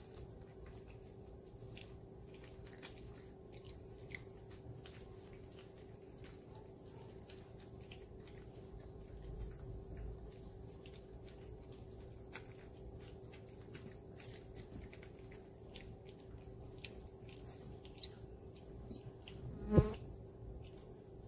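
Puppies lapping and chewing soft food from stainless steel feeding pans: many small wet clicks and taps over a steady buzzing hum. One sudden loud knock near the end.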